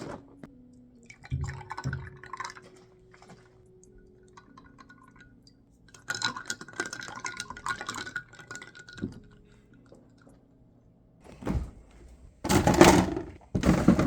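Kitchen sounds of coffee being made: cups and dishes knocking and clinking, with liquid pouring. Scattered knocks, a longer stretch of pouring about halfway through, and louder clattering near the end.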